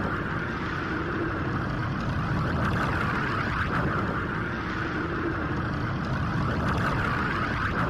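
Anime-style Super Saiyan Blue power-up aura sound effect, sped up and pitched down: a continuous crackling, rushing energy hum with a low rumble, holding steady.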